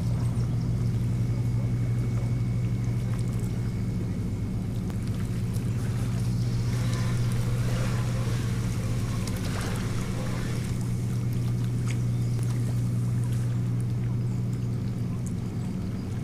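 A boat engine running steadily: a low, even drone, with a rushing hiss rising over it for a few seconds around the middle.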